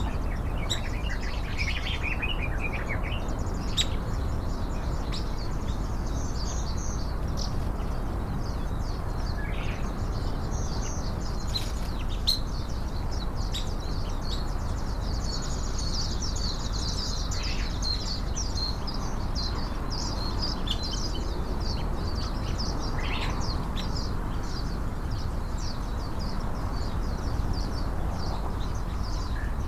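Small birds chirping: many short, high calls overlapping throughout, over steady low background noise.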